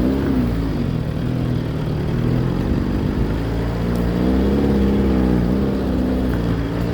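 Fiat 147 pick-up's small four-cylinder engine pulling hard under load up a slope, its pitch rising and falling as the revs change.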